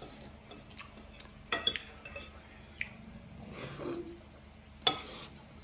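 Metal fork and spoon clinking and scraping on a ceramic plate of spaghetti, a few sharp clicks with the loudest near the end. About two-thirds of the way through comes a soft slurp of noodles.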